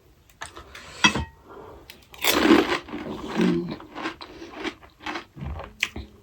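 Close-miked eating: pani puri shells crunched and chewed in irregular bites, with a loud breathy burst about two seconds in.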